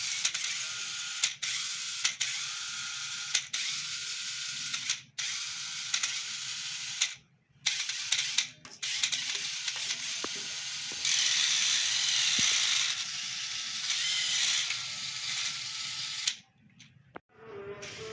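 Small electric motor and plastic gearbox of a toy RC jeep whirring, running in stretches with several brief stops, louder for a few seconds past the middle.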